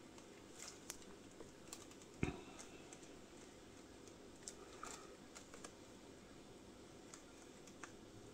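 Faint, scattered light clicks and taps from a spatula working epoxy resin across silicone coaster moulds, with one louder tap about two seconds in.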